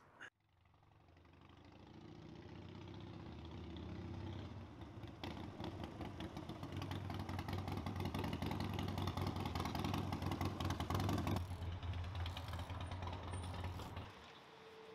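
Harley-Davidson V-twin motorcycle engine running as the bike rides up, growing steadily louder over about ten seconds, then easing off as it slows, and stopping about a second before the end.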